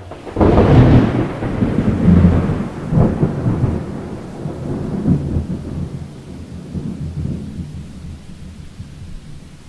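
Thunder: a loud crack about half a second in, followed by rolling rumbles that come back in waves and slowly fade.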